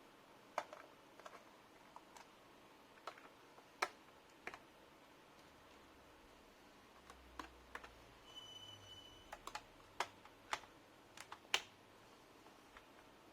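Faint, scattered small clicks and taps of a screwdriver working the screws on the underside of an HP Omen laptop's plastic case. A brief high squeak comes about eight seconds in.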